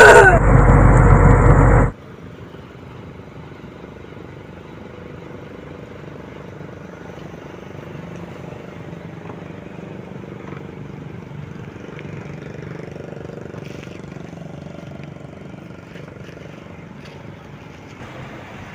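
Heavy truck engine running loud for about two seconds, then an abrupt cut to the much quieter, steady idle of parked heavy trucks' engines.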